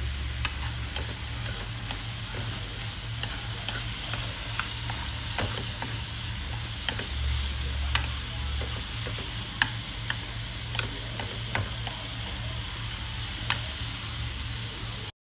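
Winter melon and pork stir-frying and sizzling in a frying pan, a steady hiss. Wooden chopsticks stirring the food tap the pan with scattered sharp clicks. A steady low hum runs underneath.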